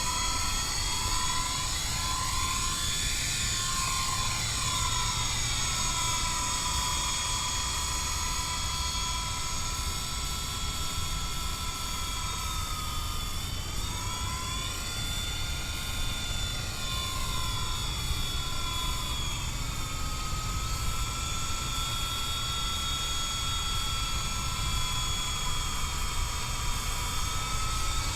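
Electric motor and rotor of an MJX F45 RC helicopter whining steadily in flight, the whine shifting as the helicopter moves about, over a constant low rumble of strong wind on the microphone.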